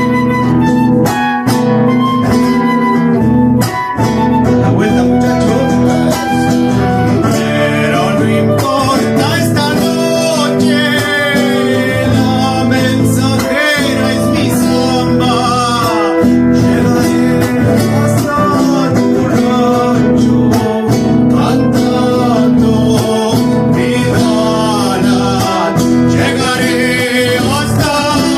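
A live Argentine folk trio playing a traditional zamba: acoustic guitars with a wavering melody line carried over them.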